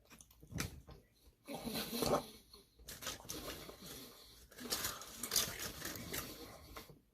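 Close-miked chewing and wet mouth sounds of someone eating chicken wings, coming in irregular bursts.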